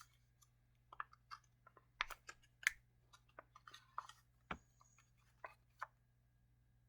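A small advent-calendar gift being handled and opened by hand: a scattering of faint clicks and taps, with a short rustle of paper or packaging about four seconds in.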